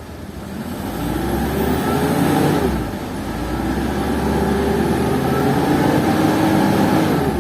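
Ford Everest engine revved up twice: a short rise that falls back about three seconds in, then a longer rev held high for about four seconds before dropping off at the end. It climbs to about 3,000 RPM but seems weak, as the vehicle is said to be losing power.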